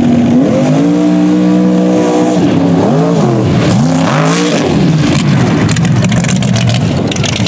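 Mud-racing truck's big V8 engine at full throttle. It holds a steady high pitch, then surges up and down several times as it races through the mud pit, turning rougher and noisier near the end.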